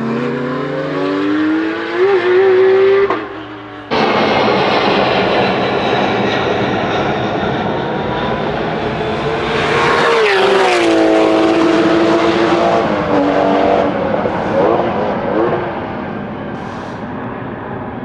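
Porsche 911 GT3 Cup race cars' flat-six engines on track. One car accelerates with rising pitch for about three seconds before a sudden cut. Then loud engine sound from one or more cars passing, the pitch dropping as a car goes by about ten seconds in, fading near the end.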